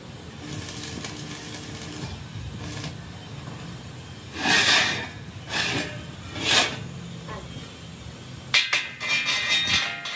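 A rolled steel wheel-rim band being handled: three short scraping clatters as the heavy band is shifted, then a quick run of metallic clinks and clanks with ringing near the end.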